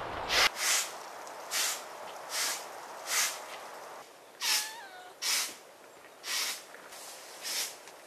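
A broom sweeping in steady swishes, about one stroke a second. About halfway through, a cat gives a short high call that dips in pitch.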